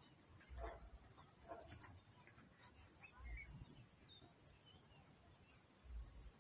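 Faint, scattered chirps of small birds over near silence, with a few soft low rumbles about half a second, three seconds and six seconds in.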